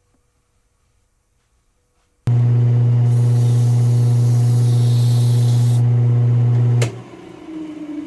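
Wood lathe motor running with a loud, steady hum as it spins a wooden pool cue shaft, starting suddenly about two seconds in, with a hiss of sandpaper against the turning shaft for a few seconds. It cuts off abruptly with a click near the end, leaving a quieter hiss and a falling tone.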